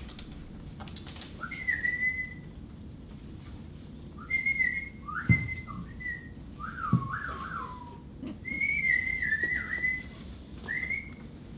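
Birdlike whistling: several bursts of short gliding whistles and warbling trills, with pauses between. Two soft knocks come in the middle.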